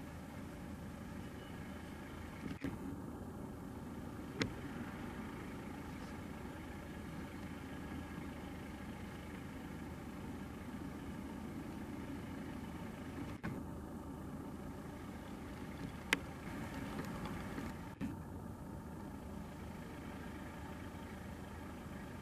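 Steady distant engine hum from the airport apron, with a few sharp clicks, the loudest about four and a half seconds in and again about sixteen seconds in.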